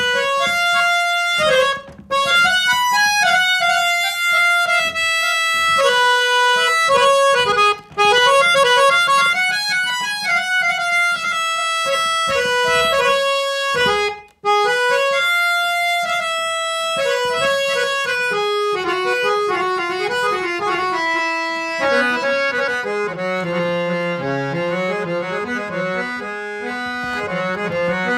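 Hand-pumped scale-changer harmonium with German Jubilate reeds playing a melody, note by note, with brief breaks about 2, 8 and 14 seconds in. From about two-thirds of the way through, lower notes sound under the tune.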